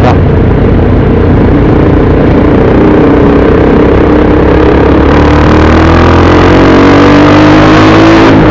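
Motorcycle engine pulling hard as the bike accelerates, its pitch rising gradually and steadily, over a heavy rush of wind and road noise.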